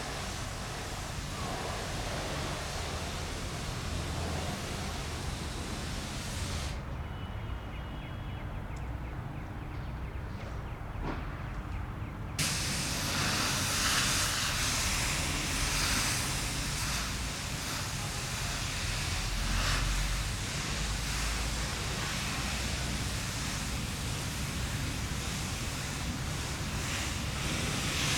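Airbus A319 jet engines heard as a steady rushing roar, growing fuller and louder about twelve seconds in.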